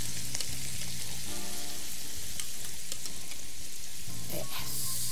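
Sliced mushrooms and bacon sizzling steadily in a hot frying pan, with scattered small pops of spattering fat.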